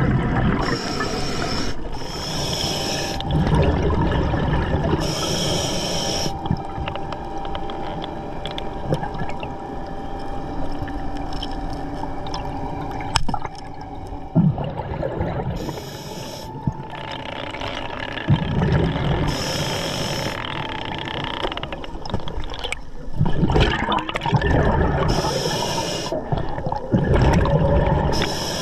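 Scuba diver breathing underwater through a regulator: repeated hissing inhales about a second long, with low bubbling rumbles of exhaled air between them, over a steady underwater wash.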